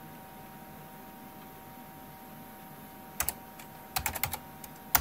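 Computer keyboard keys being typed: quiet for about three seconds, then a keystroke, a quick run of keystrokes about four seconds in and a sharper keystroke near the end.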